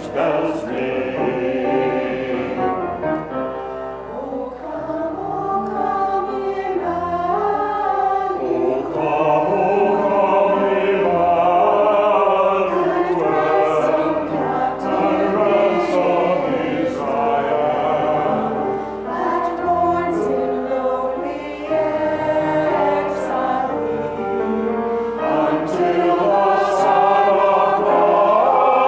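Small mixed choir of men's and women's voices singing together, holding sustained notes; the singing swells louder after a few seconds.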